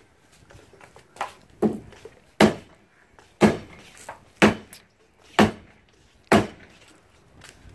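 Hammer knocking at the foot of a porch post: a run of seven sharp, loud blows about a second apart, the first two lighter.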